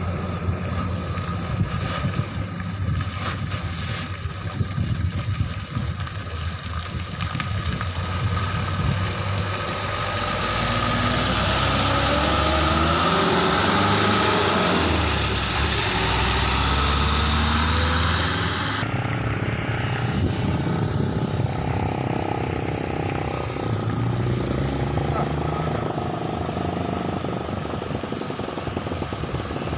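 Loaded dump truck driving past close by: its diesel engine and tyre noise swell to the loudest point in the middle, with the engine pitch gliding as it passes. About two-thirds of the way through, the sound cuts abruptly to a quieter, steady truck engine approaching from a distance.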